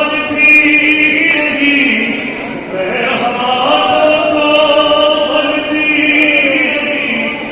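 A man's voice chanting an Urdu noha lament without instruments, amplified through loudspeakers, in long held notes that bend in pitch.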